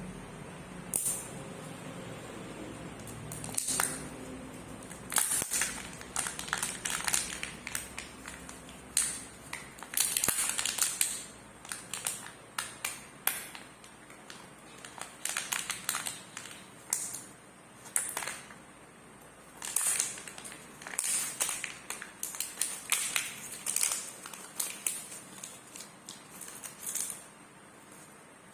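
Chocolate egg wrappers crinkling and rustling as they are unwrapped and handled, in irregular bursts of about a second each, with occasional light clicks.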